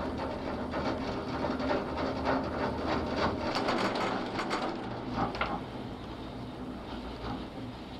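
Ride noise inside a Poma TCD8 detachable gondola cabin running past a pylon: rapid clacking and rattling as the cabin's grip runs over the pylon's sheave rollers. It settles to a smoother, quieter run about five and a half seconds in.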